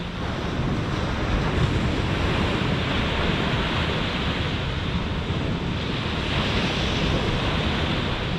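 Ocean surf breaking on a sand beach, mixed with wind buffeting the microphone: a steady rushing noise with no distinct events.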